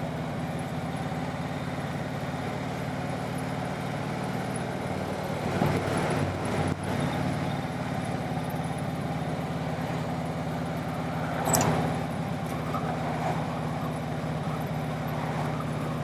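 Harley-Davidson motorcycle engine running at a steady pace while riding, over road and wind noise. Brief louder swells come about six seconds in and again near twelve seconds.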